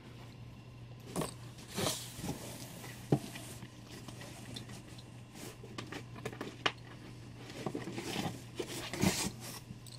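Paper rustling and scraping as comic books are handled and pulled out of a cardboard shipping box, in irregular short bursts, with one sharp tap about three seconds in.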